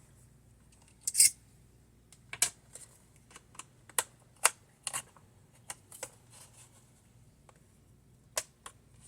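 A screwdriver prying at the plastic screen bezel of a Dell Inspiron 8600 laptop to pop its clips. It makes a string of sharp plastic clicks and taps, the loudest about a second in, thinning out after about five seconds.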